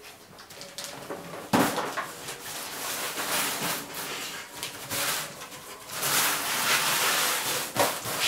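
A wrapped cardboard gift box set down on a tile floor with a knock about one and a half seconds in, then rustling and scraping as a bull terrier noses and pushes it across the tiles, loudest near the end.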